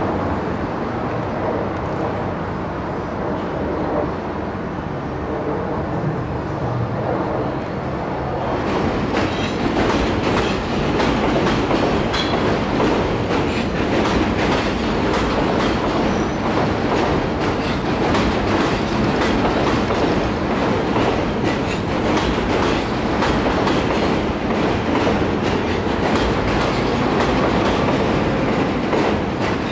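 New York City Subway trains on an elevated steel structure: a train rumbling in from a distance, then, about eight seconds in, a louder, closer train rolling past with rapid clicking of wheels over the rail joints.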